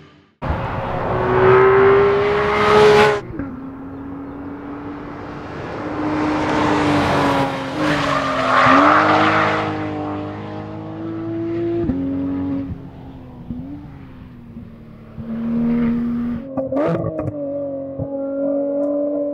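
Porsche 911 GT3's four-litre naturally aspirated flat-six engine revving under hard driving, its pitch climbing and then dropping suddenly at gear changes about three seconds in, around twelve seconds and again near seventeen seconds.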